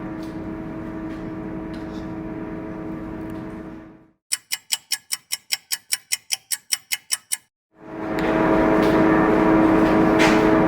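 Microwave oven running with a steady electrical hum, then a quick string of about fifteen short high electronic beeps at roughly five a second. Once the beeps stop, the hum resumes.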